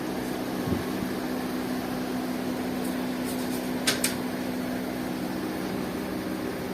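Steady mechanical hum, with two brief sharp clicks about four seconds in.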